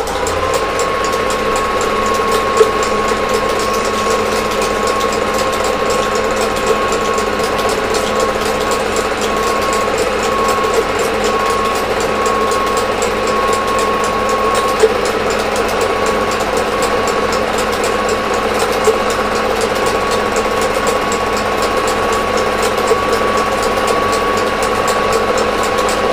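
Film projector running: a steady, rapid mechanical clatter from the film-advance mechanism, with a steady whine and an occasional louder click.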